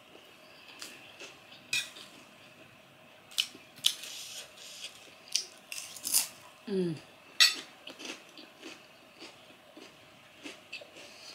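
Metal spoon and fork clinking and scraping against a ceramic dinner plate during eating, in a series of sharp clicks. Near the middle there is a brief falling vocal hum.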